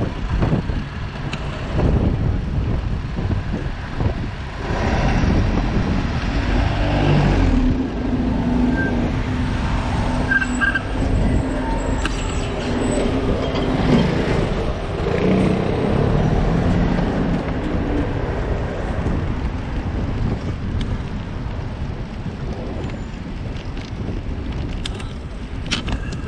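Road sound heard from a moving bicycle: wind rumbling on the microphone. A motor vehicle's engine runs close by from about five seconds in until about eighteen seconds in.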